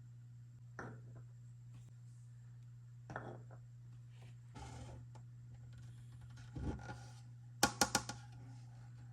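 Small toy pieces being handled: a few light knocks and scrapes, then a quick run of four sharp clicks near the end, over a low steady hum.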